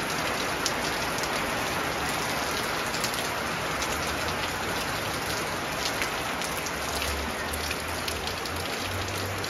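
Heavy rain falling steadily, a dense even hiss with the sharp taps of single drops hitting nearby surfaces.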